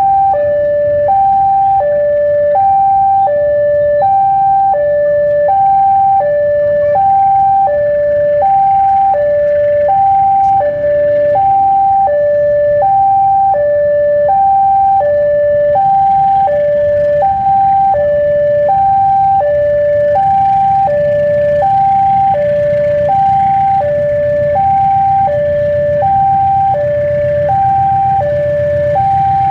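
Electronic level crossing warning alarm sounding a steady two-tone high-low 'ting-tong' that repeats evenly and without break, the signal that a train is approaching. Underneath, the low rumble of the approaching diesel locomotive's engine grows in the second half.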